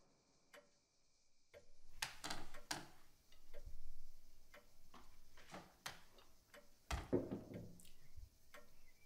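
Scattered small clicks, clinks and knocks of tableware (cutlery, plates and a glass) handled at a dining table, at an irregular pace, starting after a second or so of near silence; a heavier clatter comes about seven seconds in.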